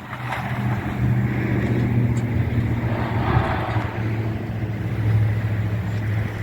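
Vehicle engine running with a steady low hum as a vehicle drives in with a load.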